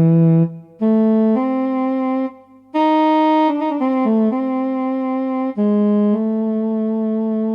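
Solo saxophone playing a slow phrase of held notes, one note at a time, with two short breaks for breath.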